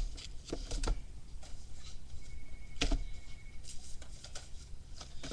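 Cardboard boxes of fireworks being handled and set down, giving a few scattered knocks and thumps, the loudest about three seconds in.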